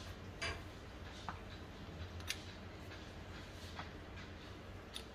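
A few faint, short clicks and taps, spread a second or so apart, as the edges of bread sandwiches are cut to trim them. A low steady hum runs underneath.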